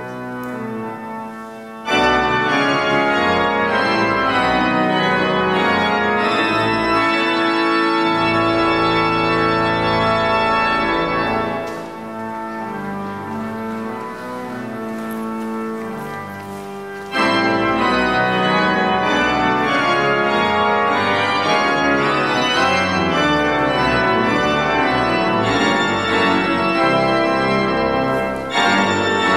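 Cathedral pipe organ playing sustained full chords. It swells suddenly louder about two seconds in, drops to a softer passage in the middle, then comes back abruptly at full volume.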